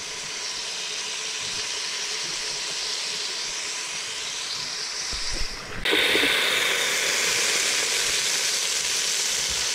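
Caterpillar pupae sizzling in a hot pan as they are stir-roasted with lemongrass, a steady hiss. About six seconds in the sizzle turns suddenly louder and brighter.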